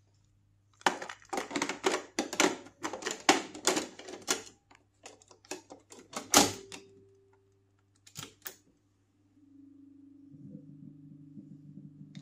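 Akai GXC-60D cassette deck being handled: a rapid run of plastic and metal clicks and clatters at the cassette door and tape well, a loud clunk about six seconds in, and two more clicks a little later. A faint low hum rises near the end as the deck starts to play.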